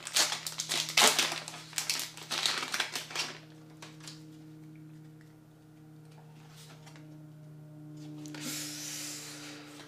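A foil Pokémon booster pack is torn open and crinkled: a rapid run of crackling rustles for about the first three seconds. After that it is quieter, with a steady low hum underneath and a soft rustle of cards being handled near the end.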